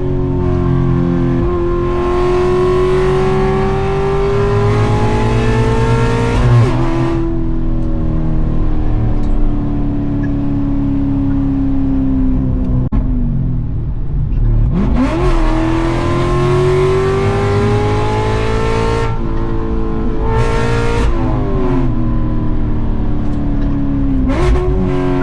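Cammed 6.2-litre V8 of a C7 Corvette with a seven-speed manual, driven hard: the revs climb steadily, fall away off the throttle, then dip sharply and shoot up about thirteen seconds in, climb again, and step down a couple of times.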